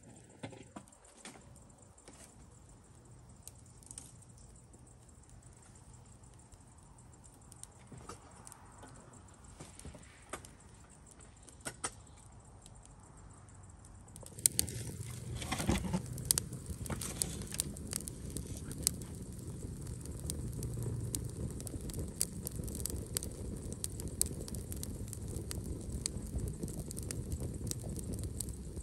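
A few light kitchen clicks and knocks, then about halfway through a pan starts sizzling loudly, with dense crackling and popping of food frying in hot oil, which runs on steadily.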